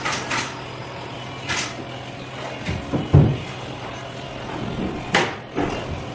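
Knocks and a dull thud of a wooden board being set down and shifted on a timber bench frame. The thud, about three seconds in, is the loudest, and a sharp knock comes near the end, over a steady low hum that fades after the thud.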